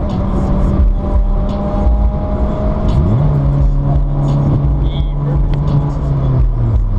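Car engine and road noise heard from inside the cabin at highway speed, a steady low rumble with the engine note holding level and changing pitch about three seconds in.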